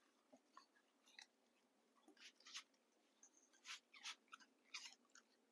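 A dog chewing and crunching a treat: faint, irregular crisp crunches scattered through, a few close together in places.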